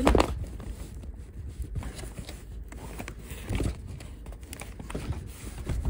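Cardboard packaging being handled: rustling and scraping as a hand works at a piece stuck inside a torn box, with a louder burst about three and a half seconds in.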